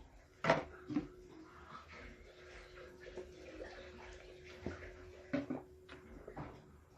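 Plastic spoon stirring thick white glue in a small plastic pot: wet, sticky stirring with irregular clicks and knocks of the spoon against the pot, the loudest about half a second in.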